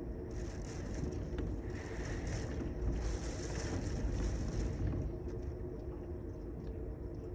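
Steady rain falling, heard as an even hiss over a steady low rumble.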